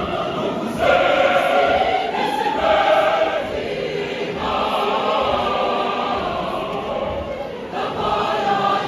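Large mixed choir of men's and women's voices singing together, holding long chords that shift every second or two.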